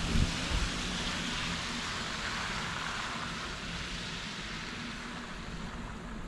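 A small camper van driving away on a wet road: a steady hiss of tyres on wet asphalt over a low engine rumble. The rumble is strongest in the first second and the hiss fades slowly as the van recedes.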